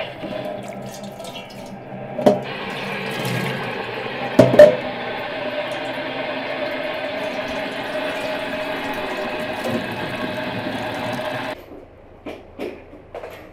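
Tap water running into a stainless steel bowl of green figs at a sink, with two sharp knocks about two and four and a half seconds in. The running water cuts off suddenly near the end, leaving a few small clicks.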